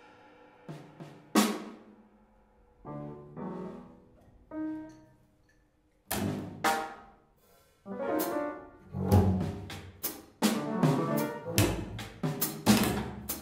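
Free-improvised music on a drum kit: sparse snare and drum strikes with a few pitched notes between them at first, then dense, busy drumming from about six seconds in.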